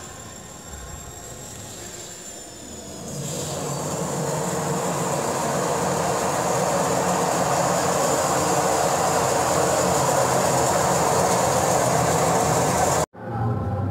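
Many old washing machines stacked into a sculpture running together: a steady mechanical rumble and rush with a low hum and a thin high whine. It swells up about three seconds in and cuts off suddenly near the end.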